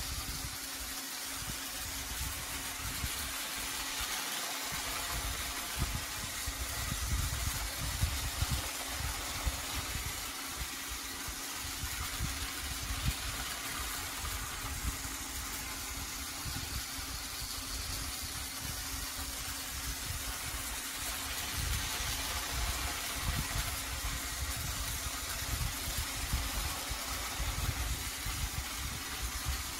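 Battery-powered Trackmaster toy train engine running along plastic track: a steady electric-motor hum and gear whir, with occasional small knocks as it rolls over the track.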